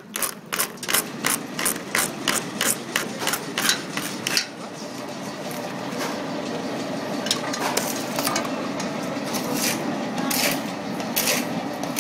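Plastic plate-making machinery running. A rapid, even clacking, about four strokes a second, stops about four seconds in. After that a steady machine hum goes on, with a few scattered knocks.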